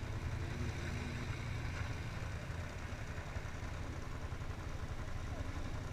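Several ATV (quad bike) engines idling steadily together, a continuous low hum.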